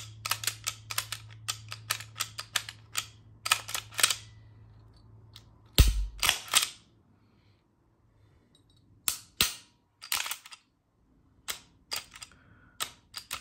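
Glock 19-pattern pistol's slide being worked back and forth by hand on greased frame rails, giving repeated sharp metallic clicks, often in quick pairs, with a heavier clack about six seconds in. The slide is being cycled to check for the drag that still catches it.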